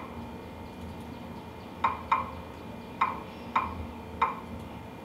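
Five light, sharp clicks of keys being pressed, starting about two seconds in and spaced irregularly half a second to a second apart, over faint steady room hum.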